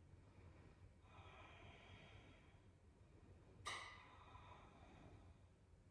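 Near silence with faint human breathing: a long soft breath about a second in, then a short, sharper breath a little before four seconds.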